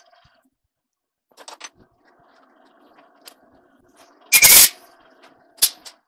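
Sharp metal clanks from steel tools being handled at a lathe, the loudest a brief clatter about four seconds in and another clank just before the end, over a faint steady hum.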